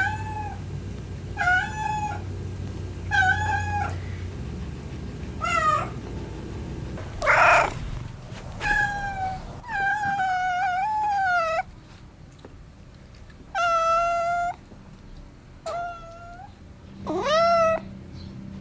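Domestic cat meowing over and over for food, about ten calls with short pauses between them, some short and some long and drawn out, with one harsher, noisier cry about halfway through.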